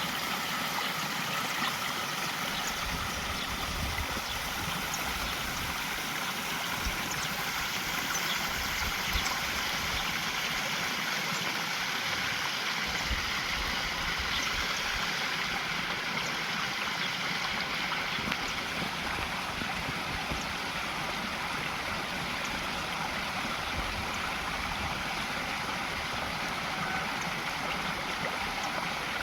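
Small waterfalls and cascades rushing steadily, an even wash of falling and splashing water.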